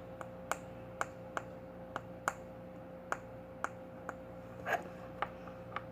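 Slime being worked by hand on a tabletop as it thickens toward the right consistency, giving short sticky clicks about twice a second. A faint steady hum lies underneath.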